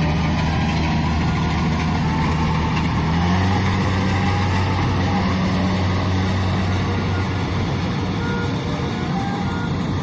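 Kubota DC-70 combine harvester's diesel engine running steadily under load, its pitch stepping up slightly about three seconds in.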